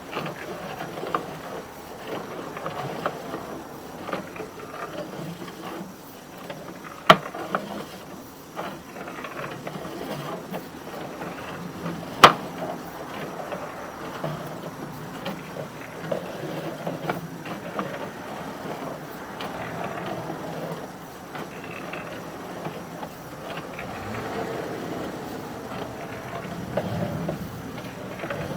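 Sewer inspection camera and its push cable scraping and rattling along the inside of a sewer pipe, with many small clicks and two sharp knocks partway through.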